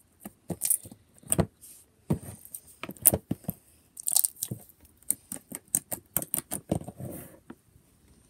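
Glossy red slime being squeezed, poked and stretched by hand, giving irregular sticky pops and clicks. These are thickest in the middle and thin out near the end.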